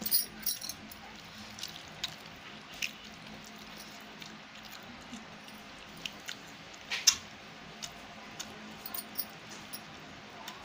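A hand mixing rice and chicken on a stainless steel plate: scattered sharp clicks and taps of fingers against the metal, a cluster at the start and the loudest about seven seconds in.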